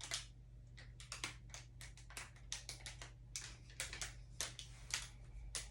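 Plastic bags of Lego pieces being handled and shuffled, with faint, irregular crinkles and clicks.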